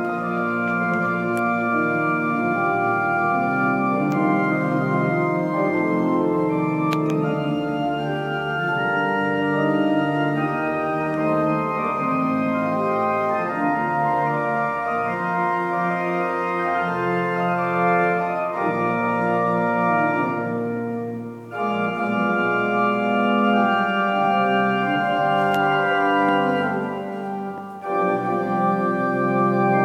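Organ playing slow music in sustained, held chords that fill the room, with two brief breaks between phrases about two-thirds of the way through and near the end.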